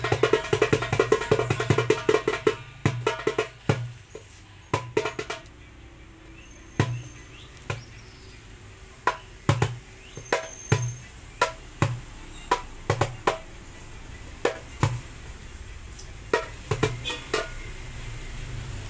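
Darbuka with a 9-inch Remo plastic (mika) head played by hand. A fast roll of strokes runs for about the first five seconds, then it slows to single strokes spaced roughly half a second to a second apart. A short quick flurry comes near the end.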